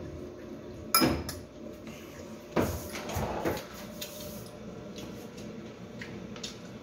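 Cutlery knocking on ceramic plates and bowls at a meal: a sharp clink with a short ring about a second in, the loudest sound, then another knock about two and a half seconds in followed by a second of clatter, and a few light taps after.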